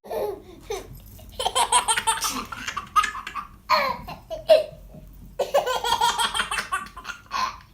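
A baby laughing in several separate bursts.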